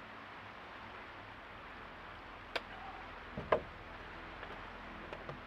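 Steady background hiss with a few light clicks and knocks about halfway through, as small objects are handled at the camp table.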